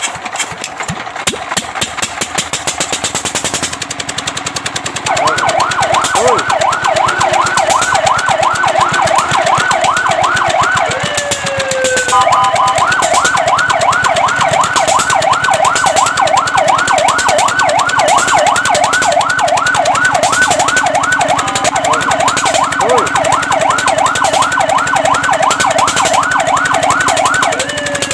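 Fire truck's electronic siren in a fast yelp, its pitch sweeping up and down about three to four times a second. It starts about five seconds in, and the pattern breaks briefly a few times with a falling glide and a short steady tone before the yelp resumes. Before the siren starts, an engine runs steadily.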